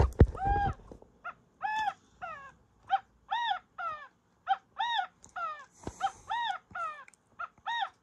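Singing bird clock playing its recorded California quail call through its small speaker: a run of short, arched calls, about two a second, marking the quail hour.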